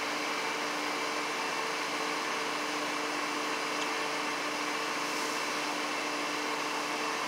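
Steady mechanical hum with a hiss, a running motor or fan, holding an even pitch and level.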